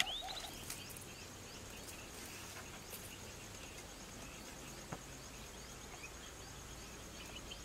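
Faint open-air ambience of an insect trilling steadily at a high pitch, with small bird-like chirps now and then and one short click about five seconds in.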